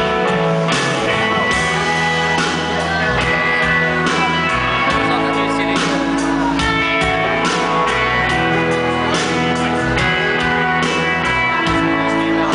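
Live rock band playing with electric guitars and drums: sustained guitar chords over regular drum hits, with little or no singing.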